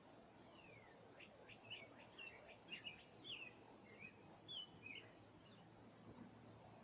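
Faint bird chirps from a small songbird: one falling note, then a quick run of short chirps and slurred notes that fades out near the end, over a faint steady background hiss.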